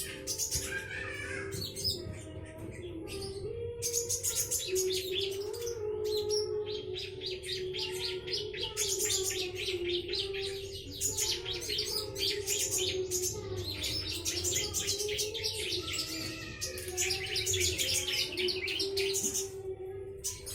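Small garden birds chirping rapidly and continuously, several at once, in dense high twittering that thins out near the end.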